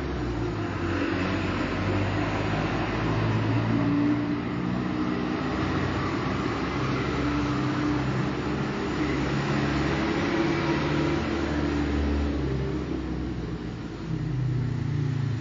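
Street traffic: steady engine drone and tyre noise from passing cars, with engine pitch shifting as vehicles speed up and slow down.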